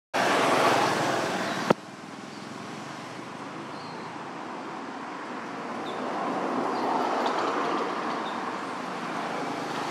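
Steady outdoor background noise. About two seconds in there is a sharp click, and the noise drops to a quieter, even level.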